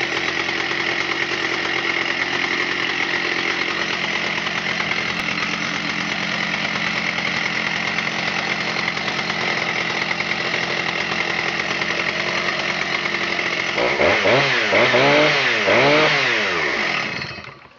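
A Stihl 084 Magnum's 121cc two-stroke chainsaw engine runs steadily at speed. About fourteen seconds in it is revved up and down about four times, then it stops.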